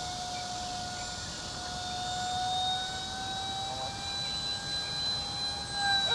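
Electric motor and propeller of a radio-controlled model airplane whining steadily in flight, its pitch edging slightly higher about five seconds in.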